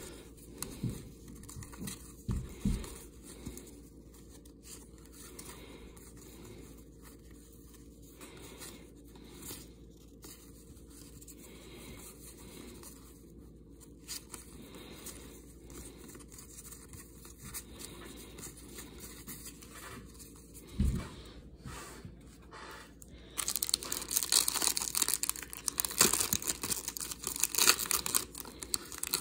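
Soft handling of trading cards with a couple of low thumps, then, about 23 seconds in, loud crinkling and tearing of a foil 1991 NFL Pro Line card pack being ripped open.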